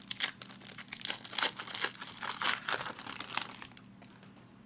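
Foil wrapper of a trading card pack being torn open and crinkled, with cards shuffled in the hand. The crinkling stops about three-quarters of the way through.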